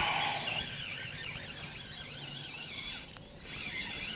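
Spinning reel on a feeder rod giving off a wavering high-pitched squeal as a hooked fish pulls and is played. The sound breaks off briefly about three seconds in, then resumes.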